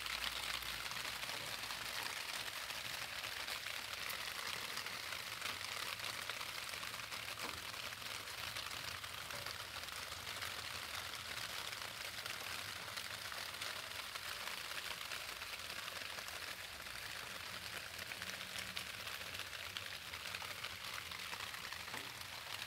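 Rain falling steadily: an even hiss with the patter of many small drops.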